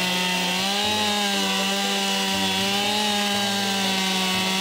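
Two-stroke chainsaw running at high revs while cutting into the base of a standing tree trunk. It makes a steady, high engine note that wavers slightly under load.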